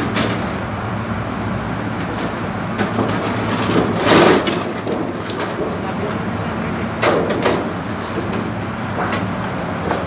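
A large, thin sheet of metal flashing rattling and wobbling as it is handled and bent, loudest about four seconds in and again around seven seconds in, over a steady low hum.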